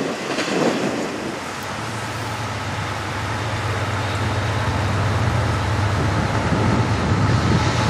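Diesel freight locomotives leading a Norfolk Southern intermodal train as it approaches, a steady low engine drone growing gradually louder over the rumble of the train.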